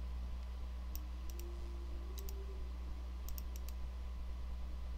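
Computer mouse clicking: a handful of short, sharp single and double clicks, with a quick run of four clicks around three and a half seconds in. Under them runs a steady low hum.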